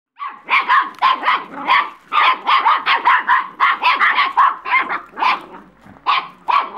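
Puppies barking in quick, high yaps, about three or four a second, with short pauses about two seconds in and again near the end.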